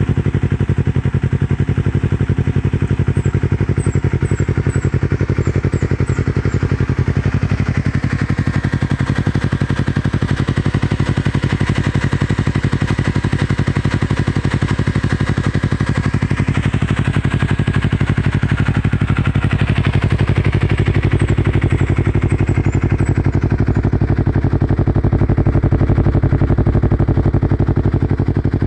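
Yamaha R3's parallel-twin engine running steadily through a Yoshimura R77 carbon full-system exhaust, an even, pulsing exhaust note with no big revs.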